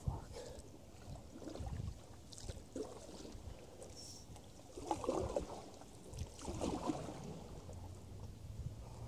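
Creek water sloshing and gurgling against the side of an aluminium canoe in irregular bursts every second or two, with a few light knocks.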